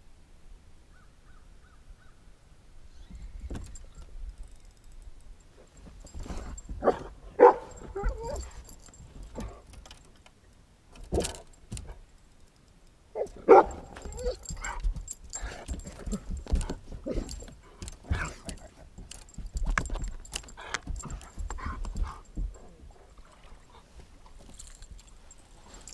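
Rattling, clicking and knocking on a bass boat's deck while a hooked bass is played and landed. A dog gives short barks, loudest about 7 and 13 seconds in.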